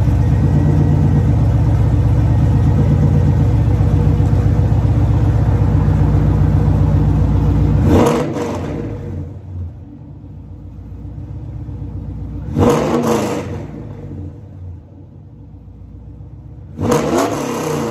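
V8 Pontiac Firebird Trans Am exhaust through Karnage Bandit Series 1 mufflers: the engine runs loudly and steadily for about eight seconds, then gives a quick rev and settles to a quieter idle. Two more short blips of the throttle follow, about four seconds apart.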